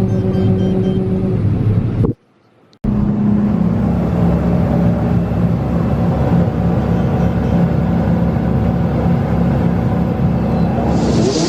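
Engine of heavy harvest machinery running steadily at a constant speed. The sound cuts out for under a second about two seconds in, and a hiss comes in near the end.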